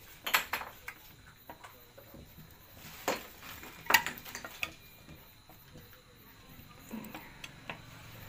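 Metal clinks and taps of a screwdriver and screws on the metal gear housing of a marble cutter as the housing screws are tightened, the loudest knocks about three and four seconds in.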